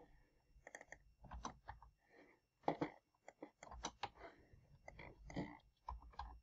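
Faint, irregular computer keyboard typing and mouse clicks.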